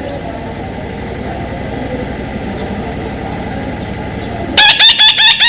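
A low, steady background rumble, then near the end a parrot starts a loud, rapid string of repeated shrill calls, about six a second.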